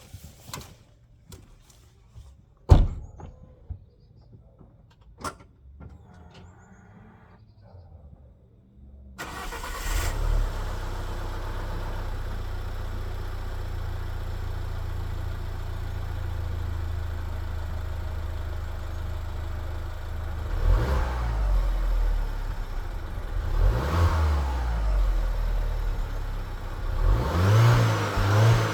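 Alfa Romeo Brera 1.75 TBI turbocharged four-cylinder petrol engine heard through its exhaust. A few sharp clicks come first. About nine seconds in the engine starts with a brief flare and settles to a steady idle. From about twenty seconds on the throttle is blipped three times, each rev rising and falling.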